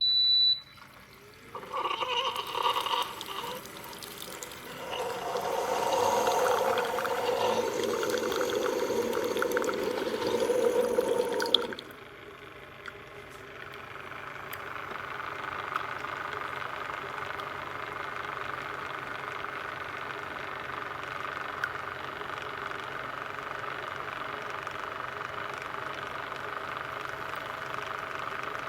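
Keurig K-Café single-serve coffee maker beeping once, then running a brew: water pumping and gurgling loudly for about ten seconds, cutting off sharply, followed by a steady quieter hum.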